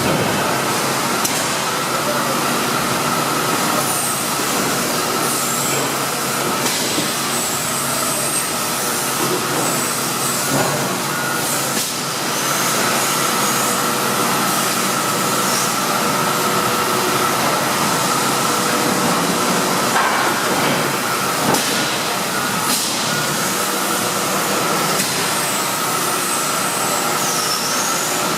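Cincinnati 175FM-10 CNC hydraulic press brake running under power, its hydraulic pump and motor giving a steady hum with a steady whine on top.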